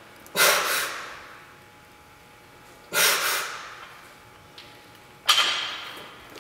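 A man breathing hard while doing low-bar back squats with a loaded barbell: three sharp, noisy breaths about two and a half seconds apart, one for each rep.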